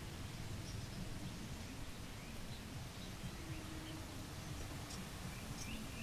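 Faint outdoor ambience: a steady low rumble with a few faint, brief high bird chirps scattered through it.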